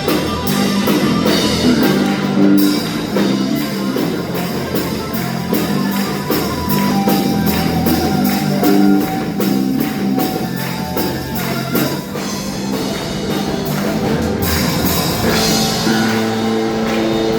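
Instrumental worship music with guitar over a steady drum beat, with even, regular ticking up top.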